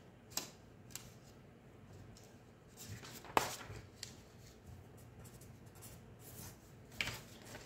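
A few short sharp clicks over light rustling, the loudest about three and a half seconds in.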